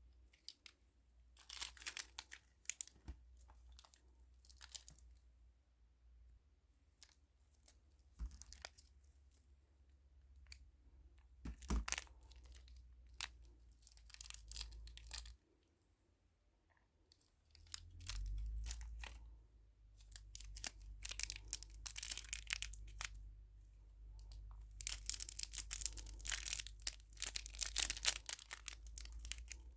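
Thin plastic packaging being torn open and crinkled by hand in short, irregular bursts, busiest near the end.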